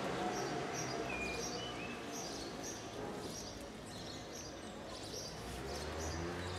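Outdoor street ambience: small birds chirping in short repeated notes, with a low traffic hum that swells near the end as a vehicle passes.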